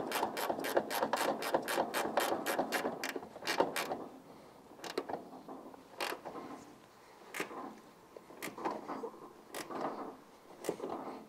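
A 13 mm ratcheting ring spanner clicking rapidly and evenly, about five clicks a second, as it runs down the top mounting nut of a rear shock absorber. The run of clicks stops about three and a half seconds in, and a few scattered metallic clicks and knocks follow.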